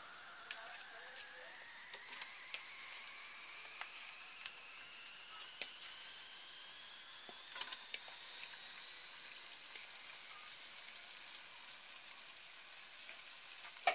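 Faint sizzling of hot oil and fried onions in a cooking pot as raw mutton pieces are dropped in, with scattered light clicks and knocks. Underneath, a thin, faint whine slowly rises in pitch.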